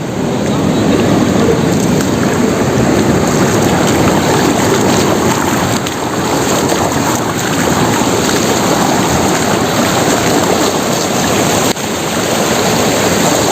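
Rushing river water pouring over a check dam, a loud steady wash of noise.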